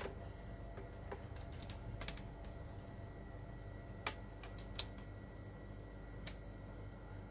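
A handful of light, sharp clicks and taps spread over several seconds, the sharpest about four and five seconds in, over a steady low hum: multimeter probes being set on an air-conditioner circuit board to measure voltages.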